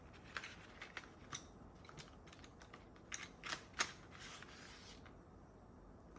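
Colour pencils being handled, giving scattered light clicks and taps as they knock against each other and the tabletop, the sharpest nearly four seconds in.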